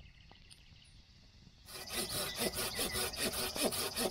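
Hand saw cutting through a log in quick, steady back-and-forth strokes, starting about a second and a half in.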